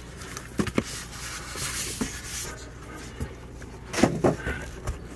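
Handling noise from unpacking a shipping box of bagged animals: packaging rustling, with a scattering of light knocks and clicks and a cluster of them about four seconds in.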